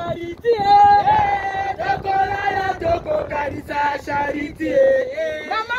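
Several voices singing together in long held notes that slide from one pitch to the next.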